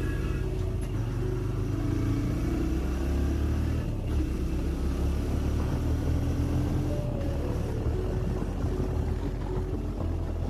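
TVS Raider 125's single-cylinder 125 cc engine running while the motorcycle is ridden, its note shifting in pitch a few times, over a heavy low rumble of wind and road noise.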